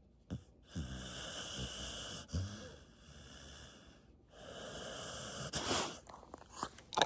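Golden retriever snoring in its sleep: two long, hissing breaths about three and a half seconds apart, with short snorts between them.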